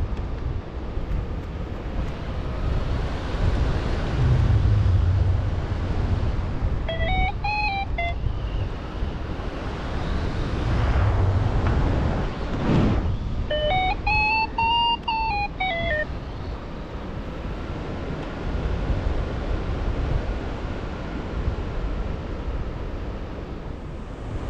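Wind rushing over the microphone in flight under a paraglider, with a flight variometer beeping in two short runs, about 7 s and 14 s in, each stepping up and then down in pitch as the glider passes through lift. A brief gust swells about 12 s in.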